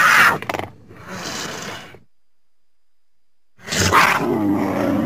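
Cougar (mountain lion) calling: a loud short call at the start, a quieter rougher one about a second in, then after a pause a longer call near the end with a wavering pitch.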